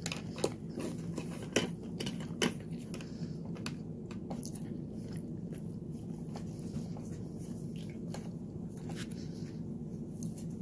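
A person chewing food with the mouth closed: soft, wet mouth sounds with a few sharp smacks in the first couple of seconds, over a steady low hum.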